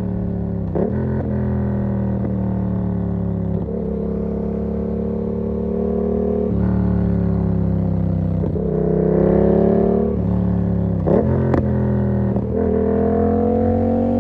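2019 Yamaha MT-07's parallel-twin engine through an SC-Project exhaust with the dB killer fitted, running under way: the note eases and climbs with the throttle, rising most strongly under acceleration about nine seconds in and again near the end. Short sharp cracks break the note several times, at about a second in and around the eleventh and twelfth seconds.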